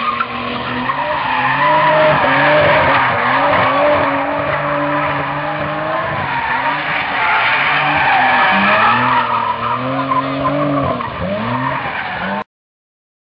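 Car engine revving up and down repeatedly while the tyres skid and squeal on the asphalt, as in a burnout. The sound cuts off suddenly near the end.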